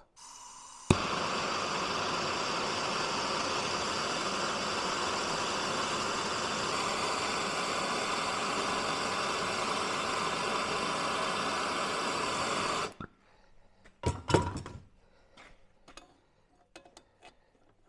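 Handheld gas blowtorch lit with a sharp click about a second in, then a steady hissing flame for about twelve seconds that cuts off suddenly. A few knocks and clunks follow.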